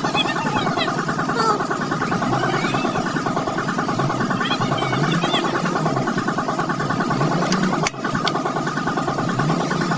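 An engine running steadily at idle, with a brief drop in level near the end.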